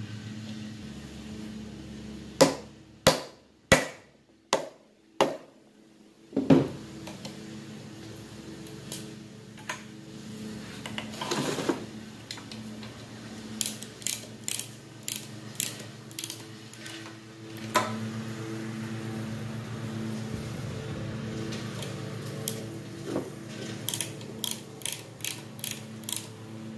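A wrench works the bolts of a cast-iron water pump: five loud, sharp metallic knocks a few seconds in, then two runs of quick, even clicks, about two or three a second, as the bolts are turned. Under it all a lawn mower engine runs with a steady hum.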